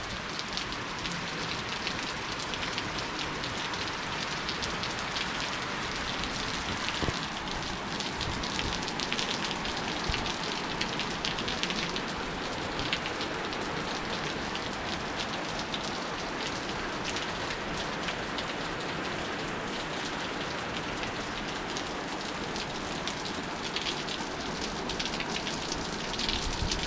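Heavy rain pouring down steadily, a dense even patter of drops.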